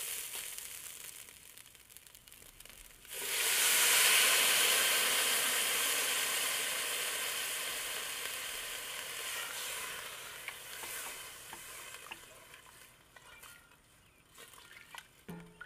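Rice frying in a hot pot, stirred and scraped with a spatula; about three seconds in, liquid is poured in and the hot pot sizzles with a sudden loud hiss that dies away slowly over the next ten seconds. A few light spatula knocks near the end.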